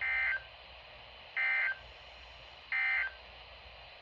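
Three short bursts of Emergency Alert System SAME data tones from a weather radio, a rapid two-pitch warble near 2 kHz, about a third of a second each and evenly spaced: the end-of-message signal that closes the winter storm warning broadcast.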